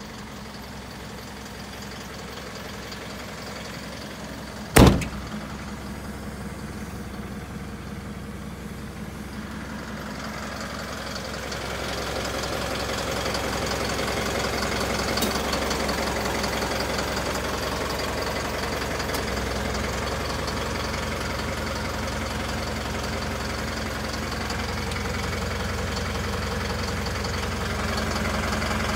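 Isuzu Elf truck's engine idling steadily, with a single sharp bang about five seconds in as a cab door is shut. The engine gets louder from about twelve seconds in, when it is heard from under the chassis.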